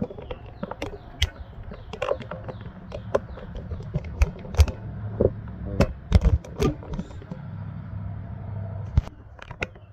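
Handling noises: scattered sharp clicks and knocks of fuel-line fittings and tools being picked up and moved, loudest in a cluster from about four to seven seconds in, over a steady low hum.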